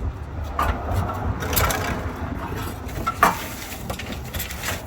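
Metal knocks and scraping as the pieces of a Cat Clamp catalytic converter lock are pushed against the exhaust pipe and its heat shield. The clamp does not fit over the shield. About four sharp knocks, the loudest past the middle, sound over a low rumble.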